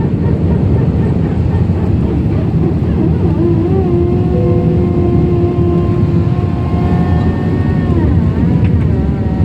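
Airbus A320 cabin noise: a steady engine and airflow roar, with a steady whine of several pitches that glides up about three seconds in, holds, and glides away near eight seconds in.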